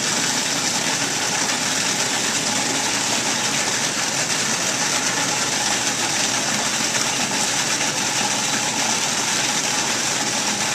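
Food processor motor running steadily, its blade chopping tomatoes, sun-dried tomatoes and onion with water and olive oil into a raw marinara. An even whirring hiss that does not change speed.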